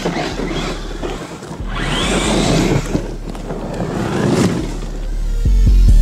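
Eachine EAT02 1/8 scale brushless RC monster truck driving hard over dry leaves and dirt, in two bursts of about one and a half and two and a half seconds. There is a rising motor whine about two seconds in, over the noisy rush of the tyres.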